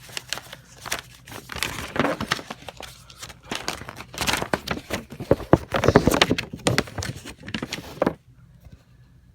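Paper and plastic packaging crinkling and rustling as a Yu-Gi-Oh starter deck's contents are unwrapped and unfolded by hand, with many small crackles; it stops suddenly about eight seconds in.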